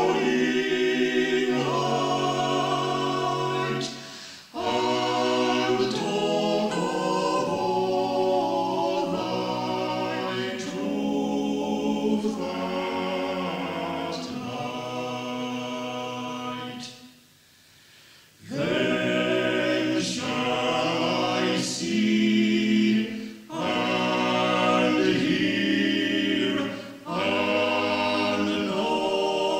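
Amateur choir singing unaccompanied in several parts, phrase by phrase, with short breaks between lines and a longer pause a little past halfway, heard on an early-1960s reel-to-reel tape recording.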